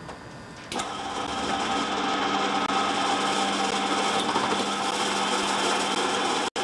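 Bench drill press switching on less than a second in and running with a steady hum while its bit is fed into a metal part clamped in the vice. The sound drops out for an instant near the end.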